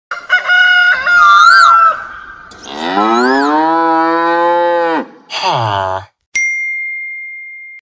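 Cattle mooing, about three long calls, the longest rising and then dropping off sharply. About six and a half seconds in, a bell is struck once and rings on with a clear tone that slowly fades.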